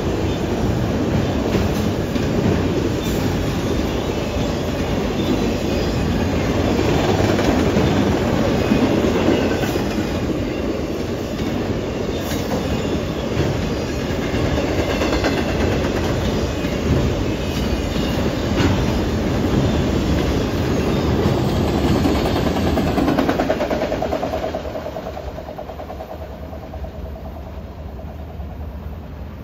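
A CSX freight train of autorack cars rolling past, with a steady rumble and clatter of wheels over the rails and some faint wheel squeal. The sound falls off noticeably about 25 seconds in.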